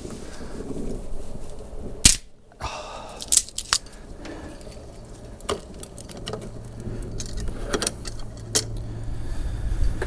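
Irregular sharp cracks and clicks from burning kindling and the handling of the wood at a Ghillie Kettle's fire base, with one loud crack about two seconds in. A low steady hum comes in over the second half.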